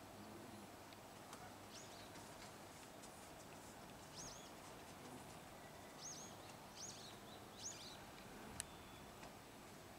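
Faint outdoor ambience with a small bird chirping now and then: about five short, high chirps, the last few coming closer together. A single sharp tick near the end.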